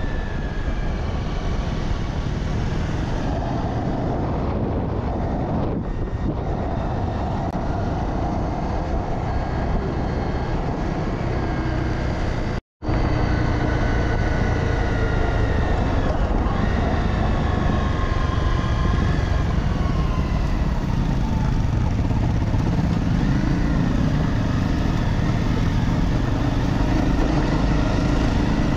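Honda CRF250 single-cylinder dirt bike engine running on the move, its pitch rising and falling with the throttle. The sound drops out for a moment a little under halfway through.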